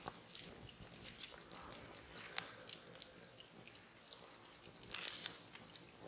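Wood fire crackling in glowing embers, with irregular sharp pops and snaps that come thickest a couple of seconds in.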